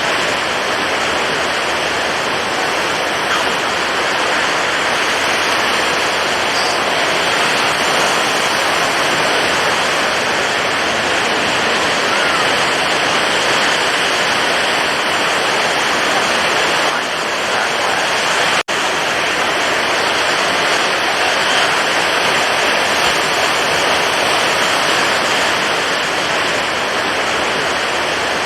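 Steady, dense rush of stormy ocean waves. There is a split-second break in the sound about two-thirds of the way through.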